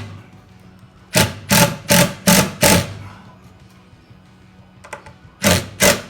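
Power drill run in short trigger bursts, drilling and driving screws for fuel-line P-clamps: five quick pulses, then two more near the end.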